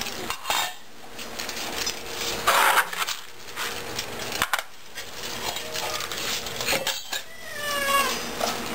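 Cat food bowls and dishes clattering and clinking, with a cat meowing a couple of times near the end.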